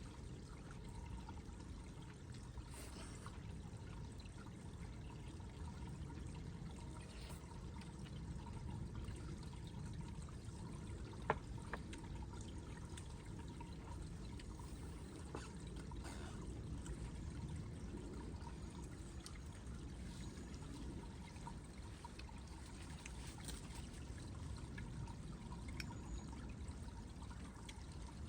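Steady sound of running water, with one sharp click about eleven seconds in.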